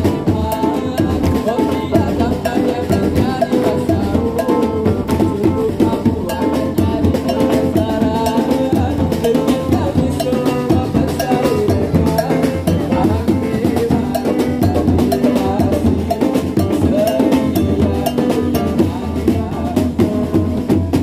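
Patrol sahur music: drums and percussion keeping a steady beat under a pitched melody.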